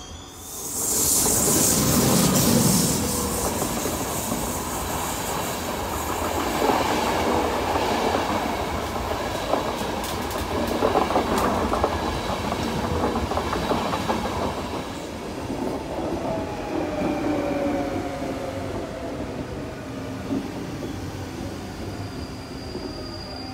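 Passenger trains in a station: the coaches of a locomotive-hauled Thello train rolling past with a rhythmic clickety-clack of wheels over rail joints and some wheel squeal. Later a Z 26500 double-deck electric multiple unit is heard with a whine that falls in pitch.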